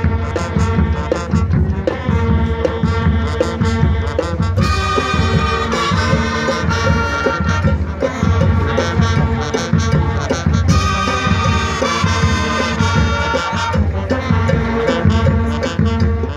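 High school marching band playing: brass and saxophones over marching bass drums, with a steady beat throughout. The horns come in brighter and louder in two passages, about four seconds in and again near eleven seconds.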